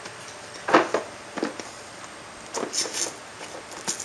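Short clatters and rustles of hand tools being handled, four or five brief bursts with the loudest a little under a second in.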